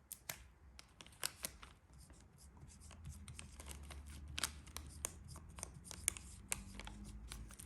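1977 chrome-plated brass slim Zippo lighter being handled: a series of irregular sharp metallic clicks from its lid and hinge, some louder than others.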